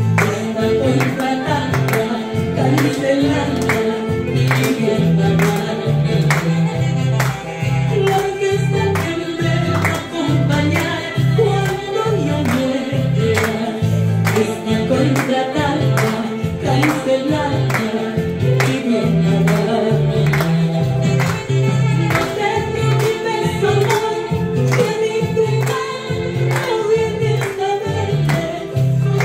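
Tunantada band music with singing and a steady beat of about two strokes a second, played for dancing.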